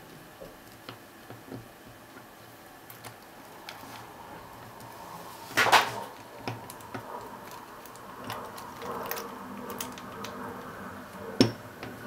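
Lock picks clicking and scraping inside a Master disc-detainer padlock as the discs are worked, with a louder clatter a little past halfway and one sharp click near the end.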